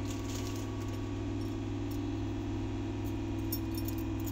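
A steady low hum, with a few faint ticks of a metal spoon against a steel bowl as gram flour is added to boiled potatoes.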